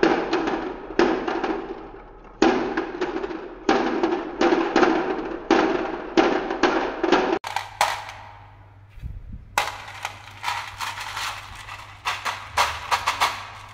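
Glass marbles rolling down a wavy wooden track in quick runs of knocks against the wood, clacking as they drop onto a load of other marbles. After a sudden break about halfway through, a lighter rattle of marbles knocking together follows.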